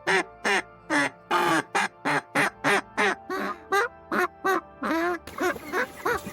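Duck quacking in a quick, steady series of short calls, about three a second, over background music.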